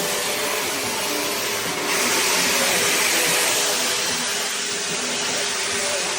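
Handheld shower head spraying water hard: a steady, loud hiss that grows a little louder about two seconds in.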